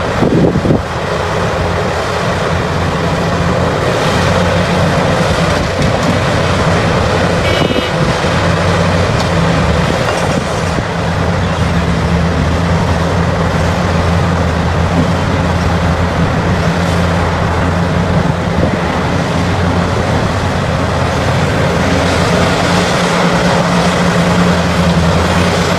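Heavy diesel mining machinery running steadily under load, a deep, even engine drone with a brief high-pitched squeal about eight seconds in.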